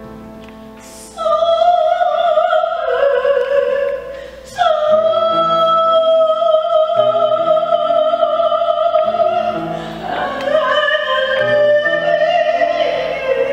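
A woman's solo voice singing long, held notes over soft keyboard chords. The voice comes in about a second in, drops briefly, then comes back at about four and a half seconds and holds a long note.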